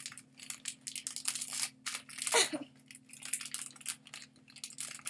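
Hands crinkling and tearing open a small plastic toy pack, a run of sharp crackles and ticks, the loudest about two and a half seconds in, over a faint steady low hum.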